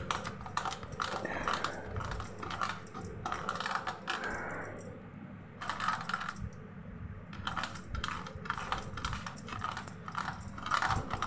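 Boiled potato being grated on a flat grater: a quick run of scraping strokes that stops briefly twice around the middle.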